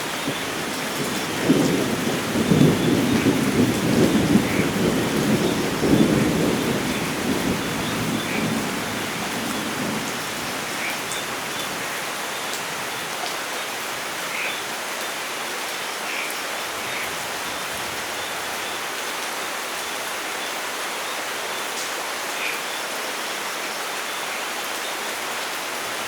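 Steady rain falling, with a long rolling rumble of thunder that swells about a second and a half in and fades away by about ten seconds.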